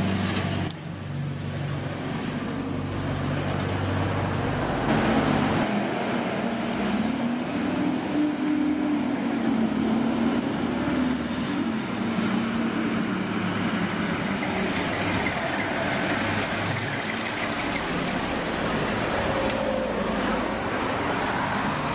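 Street traffic passing slowly: a vintage saloon car's engine running at low speed, then a wavering engine hum as more vehicles approach, over steady road and tyre noise.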